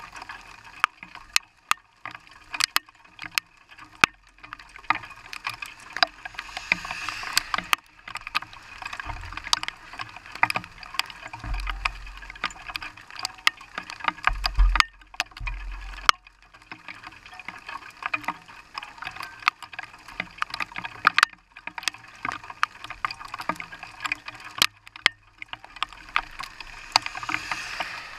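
Rain hitting the windshield and body of a parked vehicle: a dense, irregular run of sharp ticks over a faint hiss. A few low rumbles come about halfway through.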